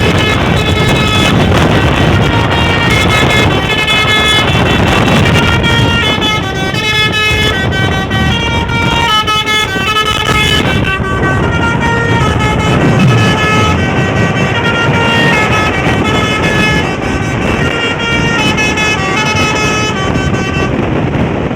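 Bus telolet horn, a Basuri V3, playing a melody of quickly stepping multi-tone notes for about twenty seconds, with short breaks, over the bus's running engine.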